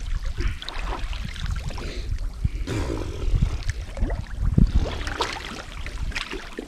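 Shallow water sloshing and splashing irregularly, with scattered low thumps, as from people wading through the water.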